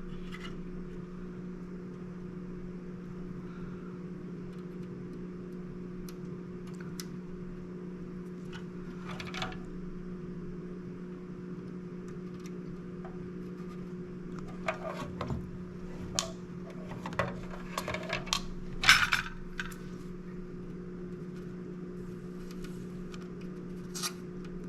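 Small hand tools and electronic parts handled on a workbench: scattered light metallic clicks and taps, busiest over a few seconds past the middle, while a new diode is readied for fitting to the circuit board. A steady low hum sounds underneath.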